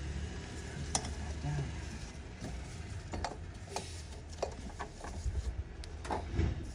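Scattered light clicks, taps and scrapes of hands and tools working loose parts around the top of a car engine, over a steady low rumble.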